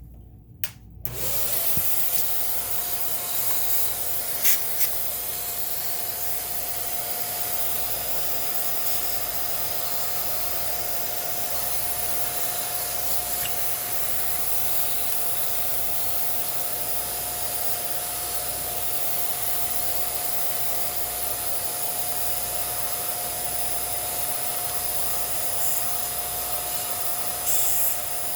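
A small vacuum cleaner switched on about a second in, its motor spinning up quickly to a steady whine over a steady rush of air.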